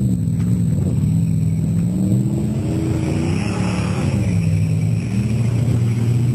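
A 4x4's engine revving, its pitch rising and falling several times, with a hiss building up about three seconds in.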